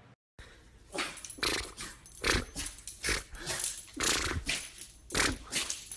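A dog sneezing over and over: about a dozen short, noisy bursts at uneven intervals of roughly half a second.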